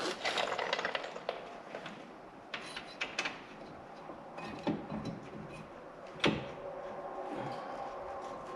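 Light clinks and clanks of steel brake parts and hand tools being handled during front brake reassembly, with one sharp metallic knock about six seconds in. A faint steady hum with a few even tones comes in near the end.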